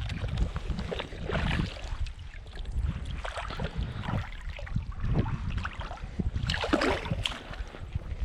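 Wind rumbling on the microphone, with irregular bursts of water splashing and sloshing, the loudest near the end.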